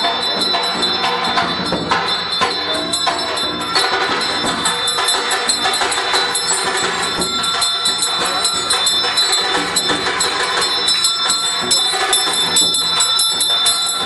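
Bells ringing rapidly and without pause, with jingling percussion and music, as they are rung during an aarti.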